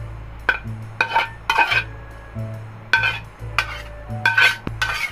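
A spatula scraping and clinking against a metal pan as the cooked liver and gizzard stew is scraped out into a bowl, in a run of short strokes with a slight metallic ring.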